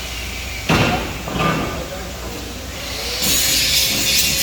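Two sharp metal knocks about a second in, then, about three seconds in, a loud, harsh, crackling hiss from metalwork on a steel handrail.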